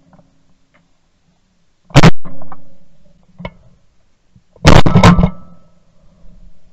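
Three shots from a Benelli SBE3 semi-automatic shotgun: one about two seconds in, then a quick pair about half a second apart about two-thirds of the way through. Each is a sharp, very loud blast with a short ringing tail.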